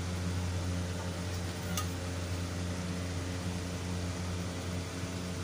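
Steady low mechanical hum, with one faint click about two seconds in.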